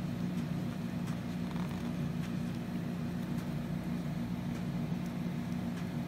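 A steady low machine hum, with a few faint small clicks as a clear plastic keycap is handled between the fingers.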